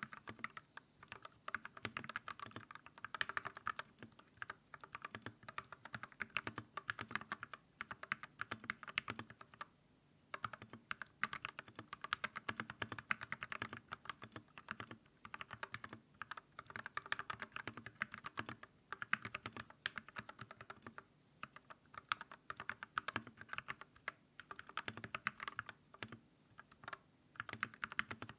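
Fast, continuous typing on an Everglide SK87 custom mechanical keyboard with lubed Gateron Milky Yellow switches and XDA keycaps, set straight on the desk with no deskmat. Rapid keystroke clacks pause briefly about ten seconds in and again about two-thirds of the way through.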